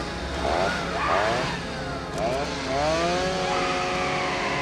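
Chainsaw revving in several quick upward bursts, then held at a steady high pitch near the end.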